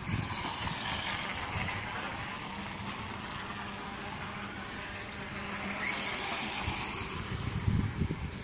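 High-revving whine of a radio-controlled model motorcycle's small methanol (nitro) engine. It swells and falls in pitch as the bike runs past near the start, fades, then comes past again about six seconds in. Low wind rumble sits underneath.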